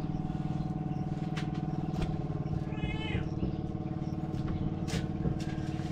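An engine running steadily at an even low pitch, with a few light knocks and a short, high, wavering cry about three seconds in.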